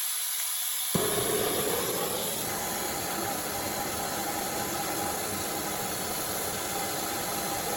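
Homemade diesel-fed oil burner: a steady air hiss, then about a second in the burner lights with a sudden whoosh and settles into a steady rushing flame noise.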